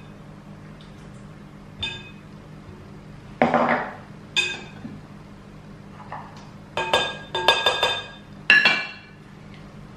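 Spoon and spatula clinking against a glass spice jar and a stainless-steel cup as ground spice paste is scraped out into a glass mixing bowl. About ten short, ringing clinks, bunched in the second half.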